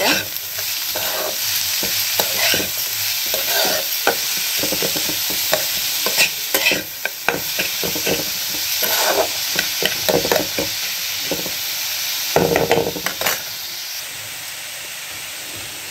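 A spatula stirring and scraping chopped cauliflower, capsicum and onion in a hot oiled kadai, over a steady sizzle of frying. The stirring stops about two seconds before the end, leaving only the sizzle.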